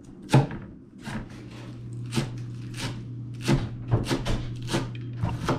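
A kitchen knife chopping on a cutting board: sharp, irregular knocks at roughly two a second. A steady low hum comes in about a second in.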